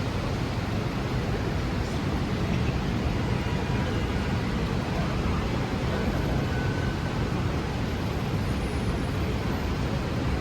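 Steady city street traffic noise: a continuous wash of passing vehicles with a low rumble and no distinct events.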